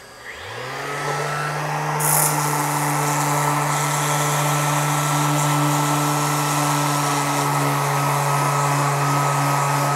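Hand-held cordless sander starting up, its motor rising to a steady pitch within about a second, then running steadily as it sands a scratch out of a plastic boat hull. It gets louder and hissier about two seconds in.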